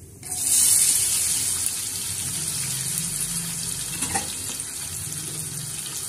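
Chopped onions tipped into hot oil in a kadai, setting off a sudden loud sizzle about a third of a second in that settles into a steady frying hiss. A light knock sounds about four seconds in.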